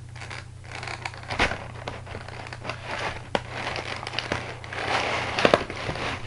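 Plastic packaging crinkling and rustling while a model airliner kit is handled, with sharp clicks of plastic parts; it is busiest about five seconds in.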